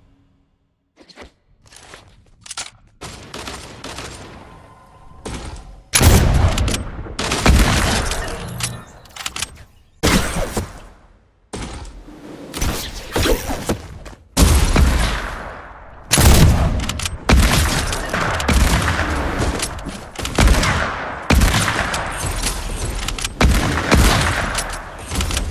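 Hunting rifle shots fired one after another, each with a long echoing decay, quieter knocks at first, then loud shots coming closer together toward the end.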